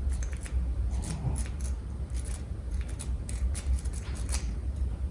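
Steel rake being scrubbed in and out of a Lockwood 225 wafer padlock's keyway under light tension: irregular quick metallic clicks and scrapes as the wafers are raked, over a steady low hum.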